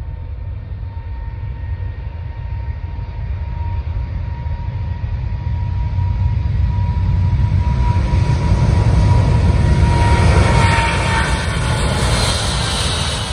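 Boeing 777-300ER's twin GE90 turbofans at take-off thrust during the take-off roll, a deep rumble under a thin steady whine, growing louder as the airliner comes closer. It is loudest about ten seconds in as it passes, when the whine fades out and a broader hiss takes over.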